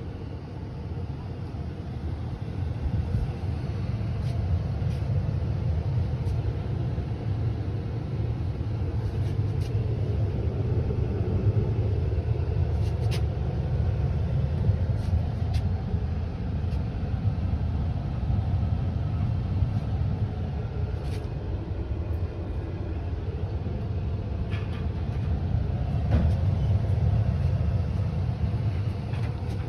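Furnace running with a steady low rumble that builds up over the first few seconds and then holds, with a few faint clicks.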